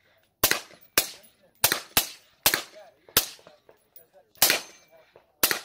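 A suppressed AR-style rifle fired in semi-automatic, about eight shots at an uneven pace of roughly one to two a second, each a sharp crack with a short echo tail.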